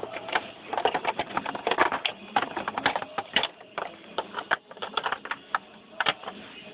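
Irregular clicking and tapping of small plastic toys being handled: Littlest Pet Shop figures and hard plastic playhouse pieces knocking together.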